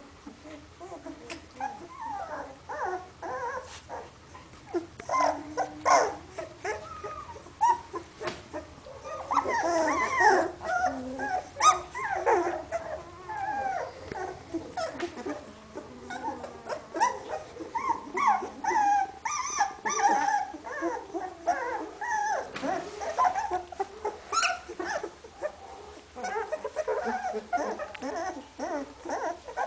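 A litter of two-week-old hovawart puppies whimpering and squeaking, many short, wavering whines overlapping one another throughout, with a few sharp clicks among them.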